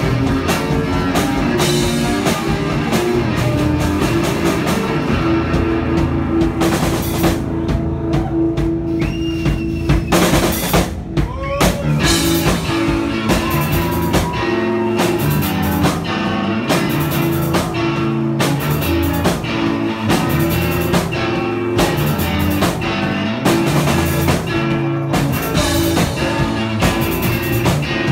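Live rock band playing loudly: a drum kit, electric guitars and bass guitar, with a short dip in the sound about eleven seconds in.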